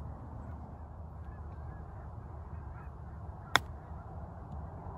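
A golf club strikes a golf ball on an approach shot: one sharp click about three and a half seconds in, over a steady low outdoor background.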